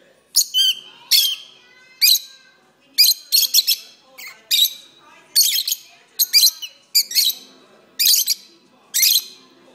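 Pet peach-faced lovebirds singing: a run of high-pitched chirps and twitters in short bursts, coming every half second to a second.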